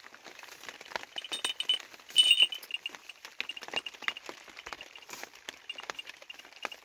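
Light rattling and clinking of small metal pieces amid many soft clicks as a wooden cradle and its bedding are handled, with a louder jingle a little after two seconds in.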